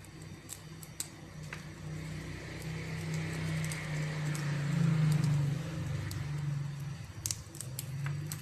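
Cardamom pods being cracked open between the fingers and pieces dropping into a small ceramic bowl, giving a few sharp clicks near the start and again near the end. Under them runs a steady low hum with a hiss that swells in the middle.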